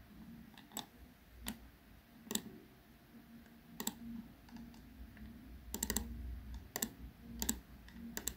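Computer mouse clicking as dialog items are selected in a program: about eight sharp, separate clicks at irregular intervals, including a quick double click about six seconds in.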